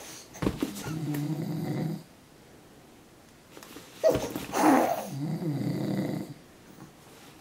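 A man snoring in his sleep: two long snores about four seconds apart, each a steady low buzz, the second opening with a sharper, brighter burst.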